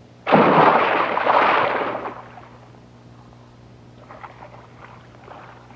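A sudden loud rush of noise that starts just after the beginning, holds for about a second and a half and dies away, followed by a faint low steady hum with scattered light crackles.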